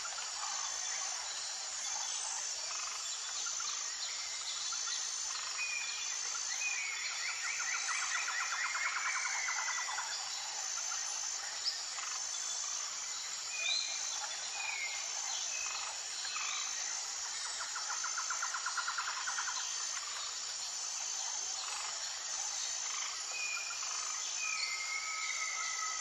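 Tropical forest ambience: a steady high insect chorus with one high note pulsing at an even pace throughout, and birds calling over it in short chirps, with a rapid trill twice.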